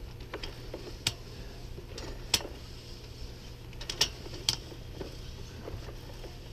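Ridgid SeeSnake push cable being worked by hand, giving irregular sharp clicks and ticks as the cable and reel move, over a steady low hum.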